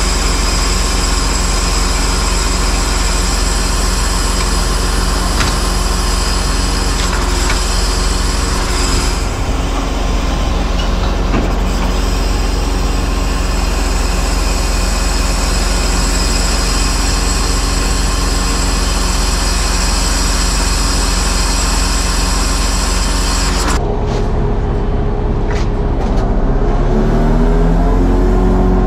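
Truck engine running steadily to power the loader crane's hydraulics, with a steady whine over the engine. About three-quarters of the way through the sound changes, and then the engine speed rises, its pitch climbing before it holds steady.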